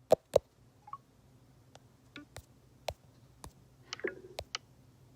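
Irregular sharp clicks and taps, the two loudest right at the start, with a small cluster of clatter about four seconds in.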